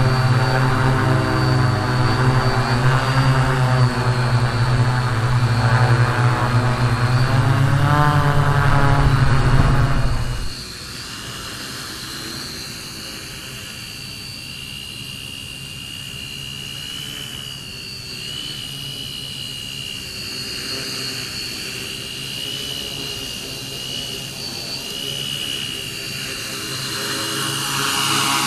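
Small quadcopter's four brushless motors (Emax 2822, 1200 kV) spinning guarded 11-inch propellers in flight, a loud buzz. About ten seconds in the buzz drops suddenly to a much quieter sound with a steady high whine, then swells a little near the end.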